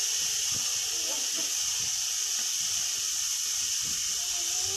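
Spice paste frying in hot oil in a karai, a steady sizzle with small bubbles popping. This is the masala being cooked down (kashano) before the fish goes in.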